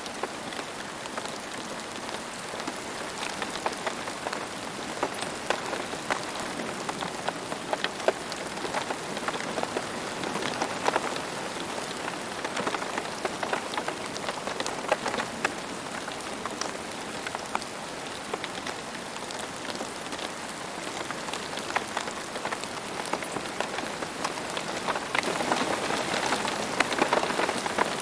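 Steady rain falling on a surface, with many separate drops striking close by and growing a little heavier about 25 seconds in.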